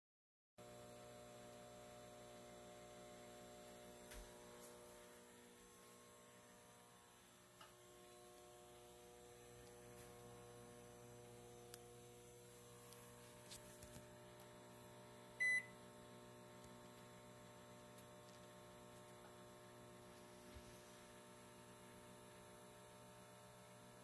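Microwave oven running: a faint, steady hum made of several steady tones. One short electronic beep sounds about two-thirds of the way through.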